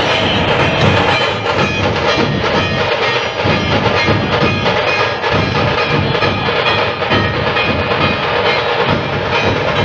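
Loud percussion-led music, with drums struck in a busy, continuous beat.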